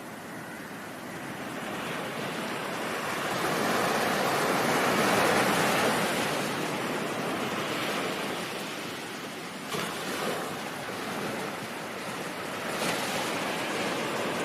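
Ocean surf: a wave washes in, swelling to its loudest about five seconds in and then slowly receding, followed by smaller swells.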